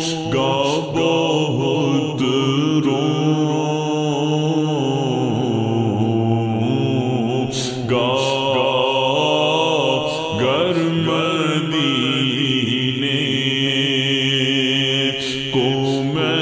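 Vocal chanting of a naat, Urdu devotional poetry, sung in long, drawn-out notes.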